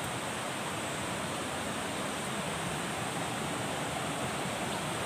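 Steady rush of a jungle river's flowing water, an even noise that does not change.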